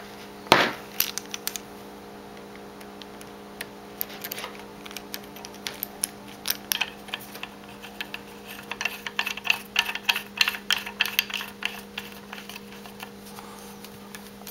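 Small metal clicks and scrapes of a flexible shaft's threaded fitting being handled and screwed onto a mini bench grinder's shaft mount, with one sharper knock just after the start and a dense run of clicking from about nine to twelve seconds in. A steady low hum sits underneath.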